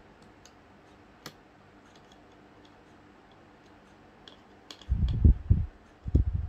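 Small clicks and ticks of hands handling a laptop's internal parts and cables, with a sharp click about a second in. Near the end, several loud dull thumps follow.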